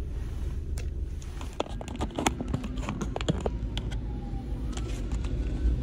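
Steady low rumble of a car, with a cluster of sharp clicks and knocks in the first half and a few more near the end.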